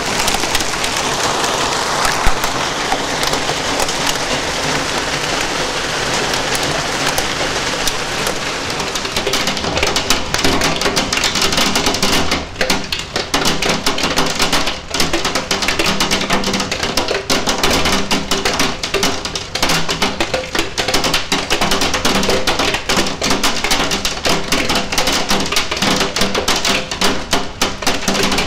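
Heavy rain with hail pouring down. About nine seconds in it turns to a dense, rapid clicking of hailstones and rain striking a window pane.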